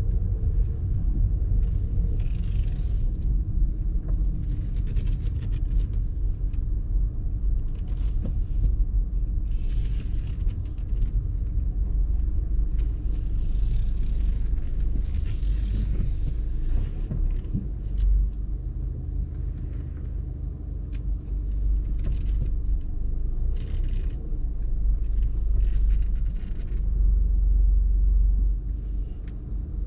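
Car driving on city streets: a steady low road rumble with a faint hum, and several brief swells of hiss from passing traffic and tyres.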